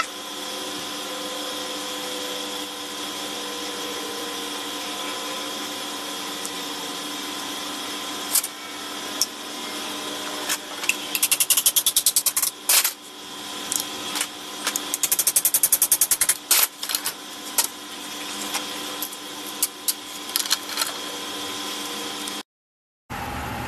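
A hammer tapping a steel tube to drive the pistons into an aluminium Wilwood four-piston brake caliper held in a bench vise. Scattered single knocks come first, then two quick runs of rapid light taps about midway, over a steady shop hum.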